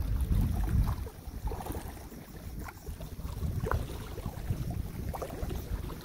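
Wind rumbling on the phone's microphone, strongest in about the first second, then easing to a softer steady rush.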